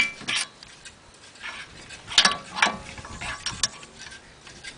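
Irregular sharp metallic clicks and clinks, a few with a short ring, from hands working at a new rear wheel bearing hub and its mounting screws.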